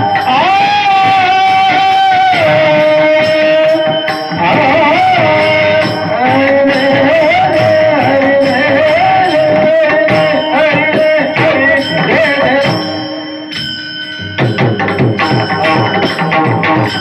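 Indian devotional bhajan music: a held, ornamented melody line over drum accompaniment. About fourteen seconds in, the melody drops back and a run of quick pakhawaj strokes comes to the fore.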